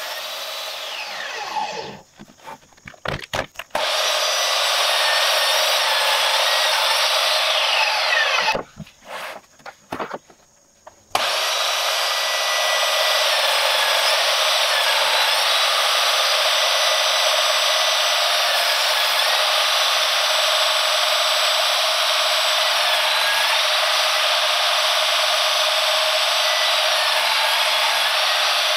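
Portable table saw cutting across an end-grain walnut and Kentucky coffeetree cutting board on a crosscut sled: a steady, loud whine of blade and motor with the wood being cut. The pitch falls over the first two seconds, and the sound drops out abruptly twice before the cutting resumes.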